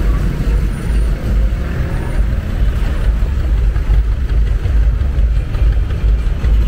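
Passenger jeepney's diesel engine rumbling as it moves past at close range, over the steady noise of street traffic.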